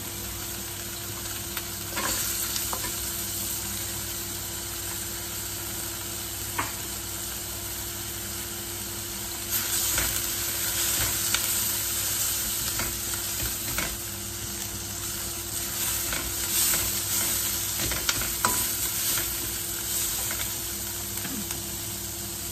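Minced pork, garlic and sliced carrots frying in oil in a wok, sizzling steadily. A spatula stirs and scrapes through it in spells of louder, rougher noise, with a few sharp clicks of the spatula against the pan.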